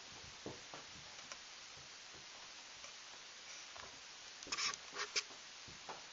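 Kittens' paws and claws tapping and scrabbling on a hardwood floor as they wrestle: a few soft knocks early, then a quick cluster of sharper scratches and taps about four and a half seconds in, over a steady hiss.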